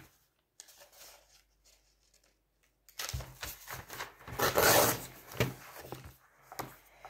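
Paper pages of a book being leafed through and turned, with rustling and a few light knocks of a notebook set down on a table. Near silence for the first three seconds, then the rustling starts, loudest about halfway through.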